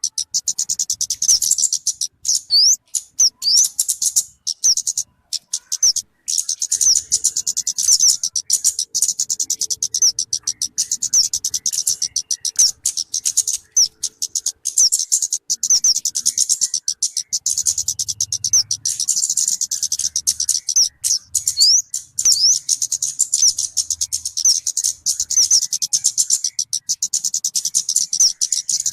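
Talokan (kemade) bird song played as a lure or tutoring recording: a fast, unbroken high-pitched chatter of chirps. A few sharp rising notes stand out now and then.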